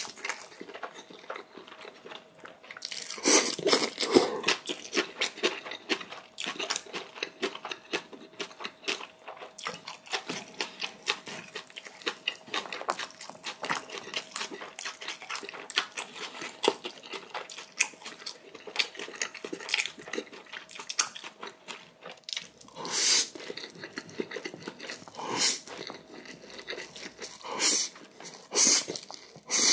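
Close-miked eating: irregular wet chewing and crunching, with louder noisy bursts about three seconds in and several more near the end, as the noodles and crunchy young-radish kimchi are eaten.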